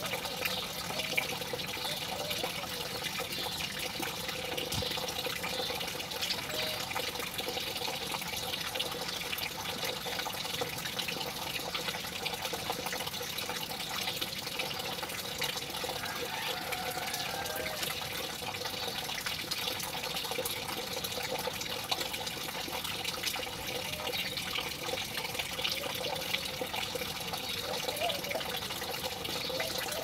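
Steady sound of running water, an even rush and splash that does not change.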